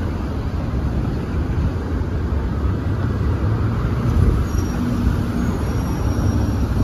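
Amphibious duck boat's engine running with a steady low rumble.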